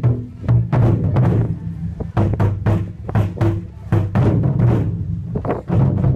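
Taiko ensemble beating nagado-daiko barrel drums with wooden bachi sticks: deep booming strikes with sharp attacks, about two to three a second in a driving, uneven rhythm.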